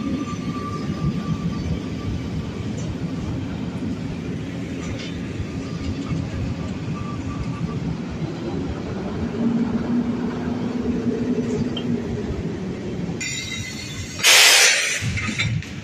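Electric trains at a station platform: a Pesa Elf electric multiple unit rumbling past with a faint motor whine, then the steady hum of an EP07 electric locomotive standing with its carriages. About fourteen seconds in, a sudden loud rush of noise lasts for about a second.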